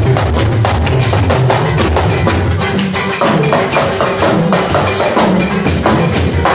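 Loud church band music: a steady, busy beat of drums and shakers over a moving bass line.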